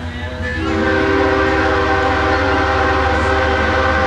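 Diesel locomotive air horn sounding a chord of several tones at once. It comes in about half a second in and is held steady as the train approaches.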